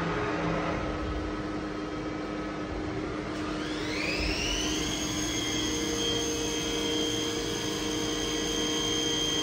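Spindle of a HURCO BMC 30/M CNC vertical machining centre running up to speed: a whine rises in pitch from about three seconds in, levels off about two seconds later and then holds steady, over a steady hum.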